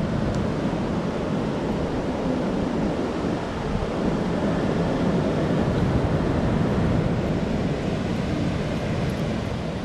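Sea surf breaking on a beach with wind buffeting the microphone: a continuous rush that swells slightly in the middle.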